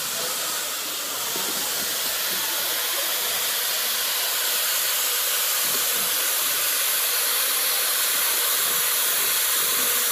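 Corded electric drill with a mixing paddle running steadily, churning alginate powder and water in a plastic bucket.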